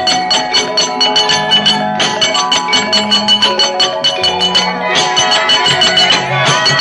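Javanese gamelan playing a fast piece, with metallophones ringing over a dense run of sharp, rhythmic knocks, about five a second.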